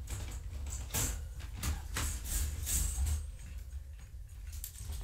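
Wire exercise-pen panels being shifted by hand: a string of metal clinks, rattles and scrapes, busiest about one to three seconds in, over a steady low hum.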